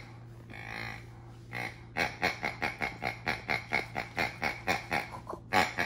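Latex pig squeeze toy grunting as a hand presses it over and over: a fast, even run of oinks, about four or five a second from about two seconds in, with a louder one near the end.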